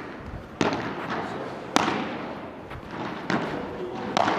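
Padel rally: the ball is struck back and forth, four sharp pops about a second apart, each with a short ring of echo.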